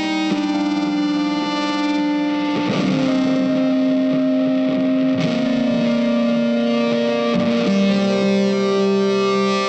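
Background music of long held notes that change pitch every second or two.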